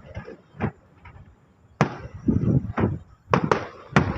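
Aerial fireworks going off in an irregular string of about seven sharp bangs, some followed by a short rumbling echo.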